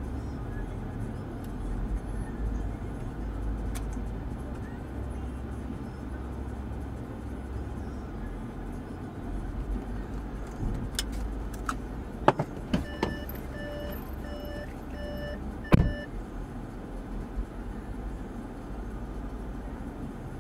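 Inside a car: steady engine and road rumble as it slows and stops. Later come a few sharp clicks and a car's warning chime beeping about eight times, roughly twice a second, ending with a loud clack like a door being opened.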